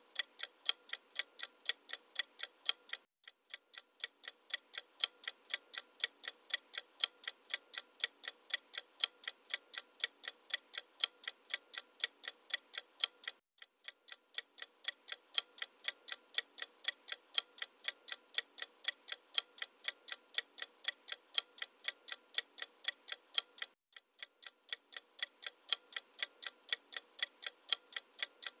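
A clock-ticking sound effect: steady, quick, evenly spaced ticks that break off briefly three times, about ten seconds apart.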